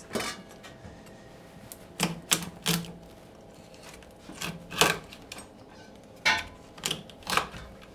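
A heavy kitchen knife chopping a lobster tail into medallions on a cutting board: about nine sharp chops in loose groups of two or three.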